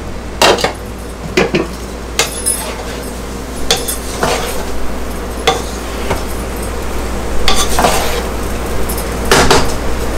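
A glass pot lid set down on the stovetop with a clatter right at the start, then a wooden spatula turning cooked rice in a pot, in a string of short knocks and scrapes against the pot about every second or so.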